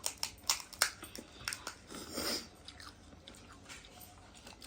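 Crisp golgappa (pani puri) shells being bitten and chewed, a quick run of crackly crunches over the first two seconds, then quieter chewing.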